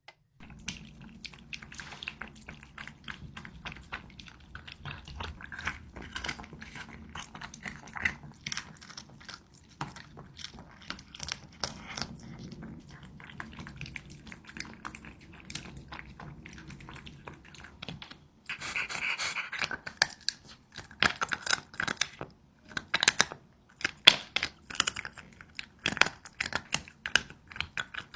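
A cat eating close to the microphone: rapid crunching and clicking of food with breathy snorts from the cat as another cat comes near it at its bowl. The crunching and snorts turn louder and more spaced out about two-thirds of the way through.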